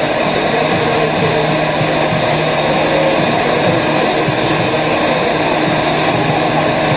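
Electric stand mixer running steadily, its motor giving a constant hum as the beater turns in a stainless steel bowl.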